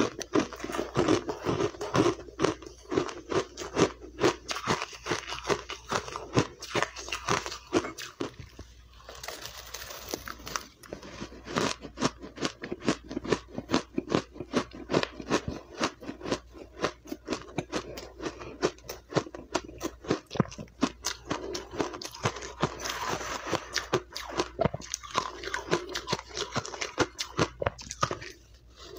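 A person biting and chewing mouthfuls of crushed refrozen ice, making dense, rapid crisp crunches, with a short lull about nine seconds in.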